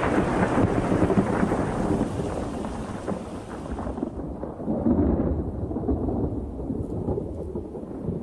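Thunder rumbling and rolling on without a break. A hiss over it dies away about four seconds in, leaving only the low rumble.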